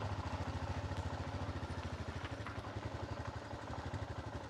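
Motorcycle engine running steadily at low revs, an even low pulsing with no revving.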